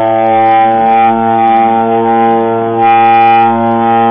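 A horn grenade, a prank canned air horn, blaring continuously on one steady, low, reedy pitch, swelling slightly in loudness now and then.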